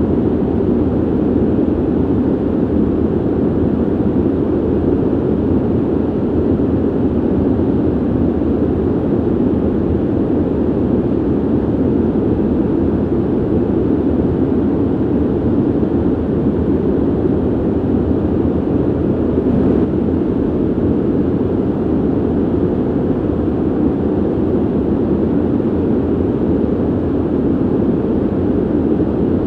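Ventilation noise: a steady, low, even rush of air through a ventilation system, with no change in level.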